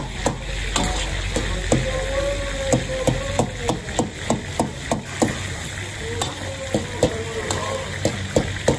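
Chicken karahi sizzling and bubbling in an iron karahi wok, with sharp, irregular metal clanks of a ladle striking the wok, about three a second.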